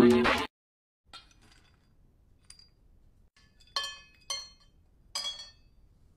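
Music cuts off half a second in; then three ringing clinks of a metal dog bowl as a few pieces of dry dog food are dropped into it, with fainter ticks before them.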